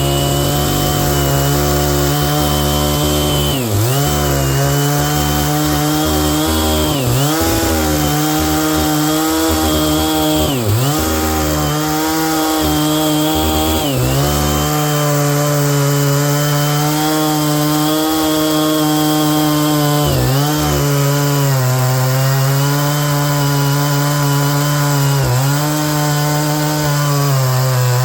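Stihl MS 660 two-stroke chainsaw with a 36-inch bar and ripping chain, running at full throttle while ripping a log lengthwise for firewood. The engine holds a steady high pitch and briefly dips and recovers about six times.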